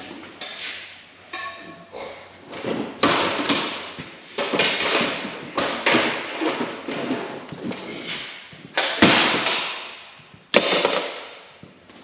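A series of irregular knocks and clanks, as from metal tools and parts being handled and set down. One, about one and a half seconds in, has a short metallic ring.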